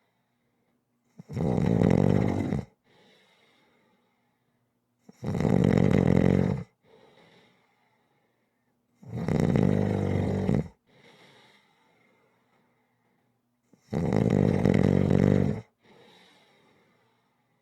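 A sleeping person snoring rhythmically: four loud snores about four seconds apart, each followed by a short, faint breath.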